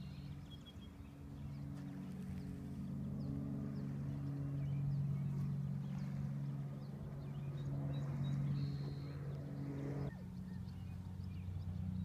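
A steady low engine hum, swelling a little around the middle and cutting off abruptly near the end, with brief high bird chirps scattered over it.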